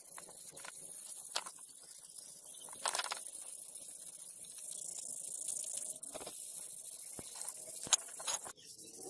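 A pad rubbed briskly back and forth over a brass knife handle, making a steady scratchy hiss with scattered light clicks and taps of metal, and one sharper tap near the end.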